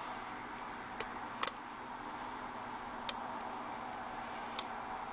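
Lock pick working the pin tumblers of a Yale Y90S/45 six-pin padlock during single-pin picking: a few small, sharp metallic clicks, a double click about a second and a half in, over a steady hiss.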